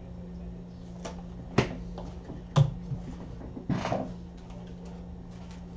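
Desk handling sounds: a handful of sharp knocks and clacks as cards and small objects are set down and moved on a tabletop, the loudest a little under halfway through, followed by a few faint ticks, over a steady low hum.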